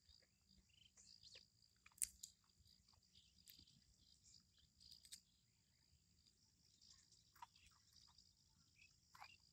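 Faint chewing of raw green grass pea (khesari) pods: scattered soft clicks with one sharper click about two seconds in, over a steady high insect trill.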